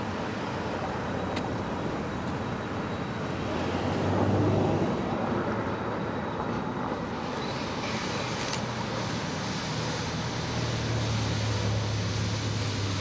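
Steady rumble of a large vehicle with a low engine hum, swelling briefly about four seconds in.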